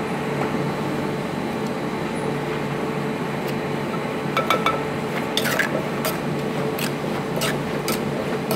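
Metal spoon clinking and scraping against a clay mortar as wet bamboo-shoot salad is tossed, with a run of sharp clinks from about halfway through. A steady background hum runs underneath.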